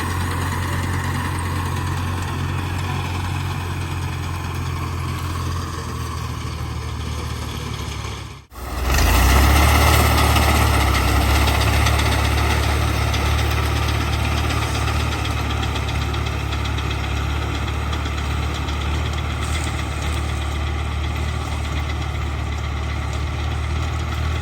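Fiat 480 tractor's diesel engine running steadily while working a wheat reaper. It drops out abruptly for a moment about a third of the way in, then comes back louder.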